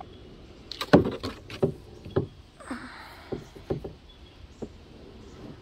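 Hollow knocks and bumps on a kayak, about a dozen over a few seconds, the loudest about a second in, with a brief swish in the middle.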